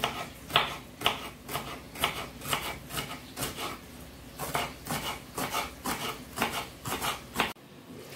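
Kitchen knife slicing a green hot chili pepper into rings on a wooden cutting board: a steady series of short knocks of the blade on the board, about two a second, coming a little faster in the second half and stopping abruptly near the end.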